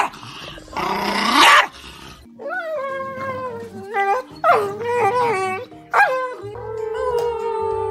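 A dog growls and barks in rough bursts, then from about two seconds in a dog howls along to music. The long, wavering howls slide up and down over steady held musical notes, ending in one long, slowly falling howl.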